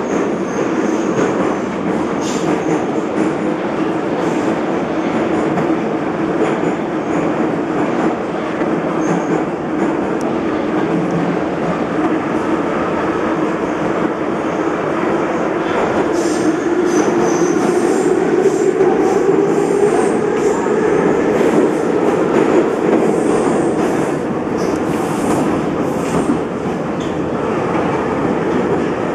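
Soviet-built Em-series metro train (Ema-502/Em-501 cars) running at speed, heard from inside the car: a loud, steady rumbling drone of wheels and running gear. About halfway through, the drone's pitch rises a little, and light clicking of the wheels over the rails comes through in the second half.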